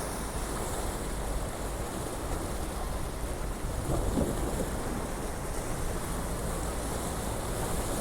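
Sea waves washing, with wind buffeting the microphone: a steady rush of noise over a low rumble, swelling a little about halfway through.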